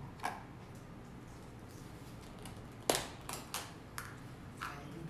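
Scattered light clicks and taps of things being handled on a table, a phone and a spoon against takeout containers, with one louder knock about three seconds in and a few smaller ones after it, over a steady low room hum.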